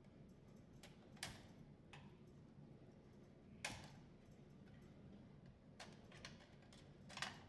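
Scattered sharp plastic clicks and taps as wire connectors and clipped parts are worked loose on a Bosch dishwasher's control board. The louder clicks come about a second in, midway and near the end, with fainter ticks between.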